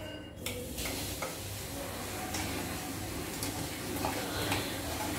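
Food sizzling in a pan on a gas stove, with a few light clinks of steel utensils and containers.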